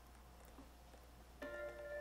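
Near silence, then about one and a half seconds in a soft chime-like musical note of several held tones begins: background music.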